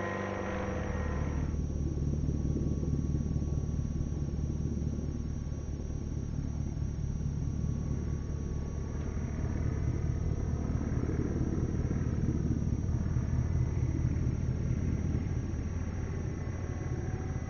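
Electric motor and propeller of a 3D-printed scale RC plane in flight: a whine that drops away about a second and a half in, then a faint whine that rises and falls as the plane passes, over a steady low rumble.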